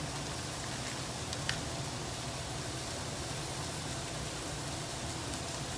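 Chicken frying in a pan, a steady even sizzle, with one light click about one and a half seconds in.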